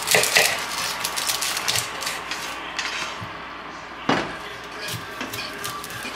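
Cooking sounds: a metal utensil clattering and scraping in a pan over a steady hiss, with a sharp knock about four seconds in.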